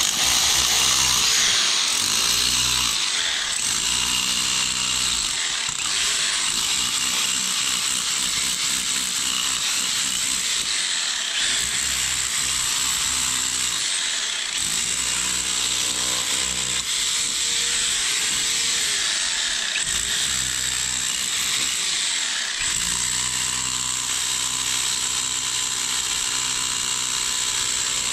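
Handheld corded power tool running almost without a break as it is worked into the stone and rubble of a house foundation, its low pitch dipping and recovering under load.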